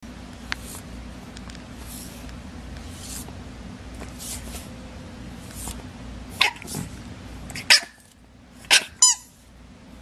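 A pet animal making about five short, sharp sounds in the second half, the last two close together, over a steady low hum.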